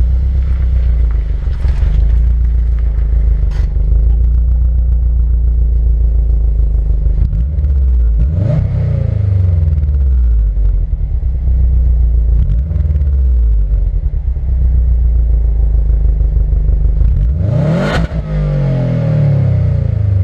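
Subaru WRX STI's turbocharged flat-four boxer engine on its stock exhaust, heard from under the car while driving, with road noise. The revs climb sharply twice, about eight seconds in and again near the end, and each time drop away as the car lifts off or shifts. A short loud burst comes at the peak of the second climb.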